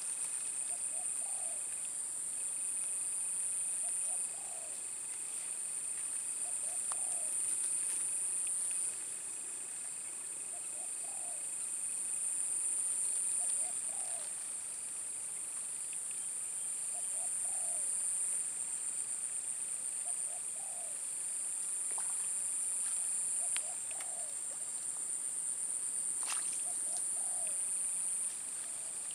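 Steady high-pitched insect chorus that swells and drops in level every four to five seconds, with a short low bird call repeating about every two seconds.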